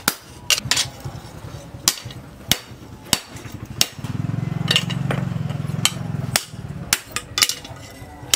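Hand hammer striking red-hot plough-disc steel on an anvil: single spaced blows with a ringing clank. A low steady hum comes in for about two seconds midway while the blows pause, and then the blows resume.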